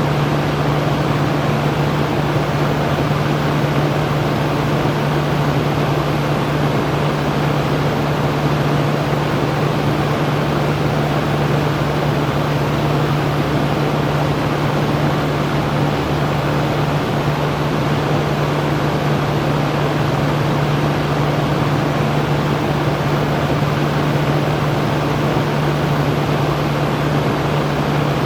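Electric fan running steadily: an even rushing noise of moving air with a constant low hum beneath it.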